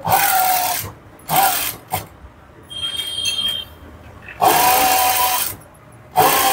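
Electric sewing machine stitching in short bursts: about three runs of up to a second each, with stops between, as lining is sewn onto fabric along a marked line.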